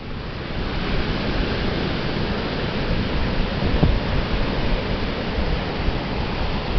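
Atlantic Ocean surf washing onto the beach: a soft, steady rush of waves with no distinct breaks.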